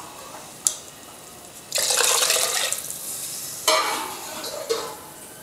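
Water poured from a metal tumbler into an aluminium pressure cooker holding washed rice and moong dal: two splashing pours of a second or more each, after a light knock near the start.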